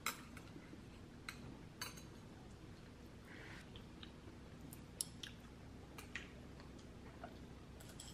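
Metal chopsticks clicking now and then while picking food out of a bamboo steamer: a handful of faint, sharp clicks over a low room hum.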